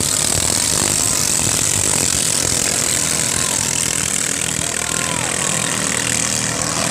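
Ketinting longtail boat engines running together, a steady dense mechanical noise.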